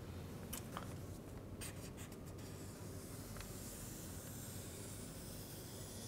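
Felt-tip marker drawing a long line on flip-chart paper: a faint, high scratchy hiss. A few faint clicks come in the first two seconds.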